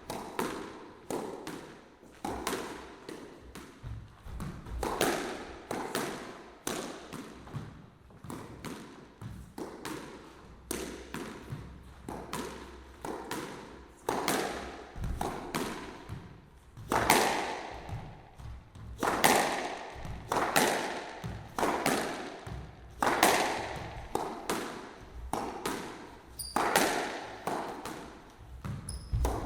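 Squash ball being struck by rackets and hitting the court walls in a rally: a fast, irregular run of sharp knocks, each with a short echo off the enclosed court. The hardest shots come near the middle.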